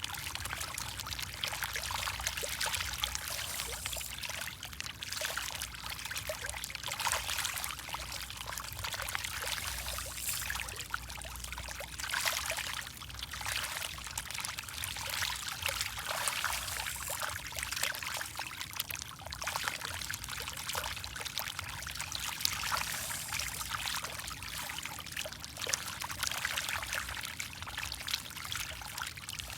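Water splashing and trickling without a break, with many small crackling splashes and slurps: a crowd of fish feeding at the surface.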